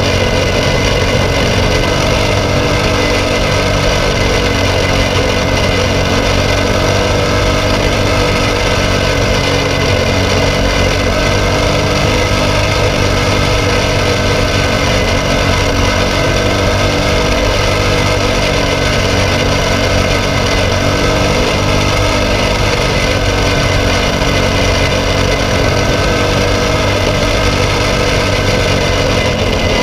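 Briggs & Stratton LO206 single-cylinder four-stroke kart engine running hard at racing pace, recorded on board the kart, its note wavering up and down continuously as the kart works through the corners.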